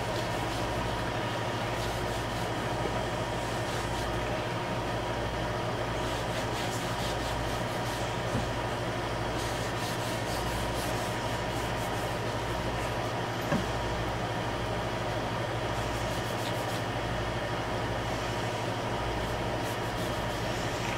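Steady low machine hum, like a motor running nearby, with faint rubbing of a rag wiping linseed oil onto an oak paddle and a couple of small knocks.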